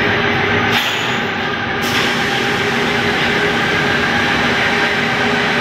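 Steady, loud din of running factory machinery: a dense mechanical noise with several steady hums in it, and a brighter hiss joining about two seconds in.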